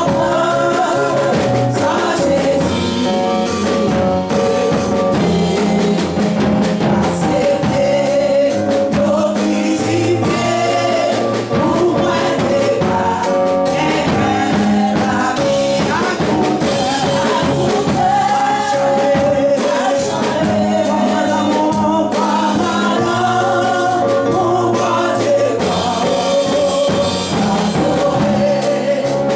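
Gospel music with a drum kit and group singing, played loudly and steadily.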